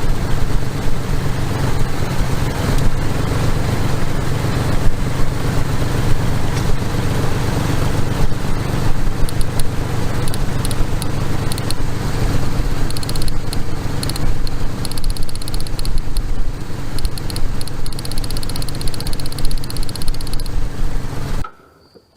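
2001 Ford F150's 4.2-litre V6 running with a misfire from a weak ignition coil. In the second half, repeated sharp clicks are heard, taken here to be spark cracking from the coil towers to a grounded test light. The engine stops abruptly near the end.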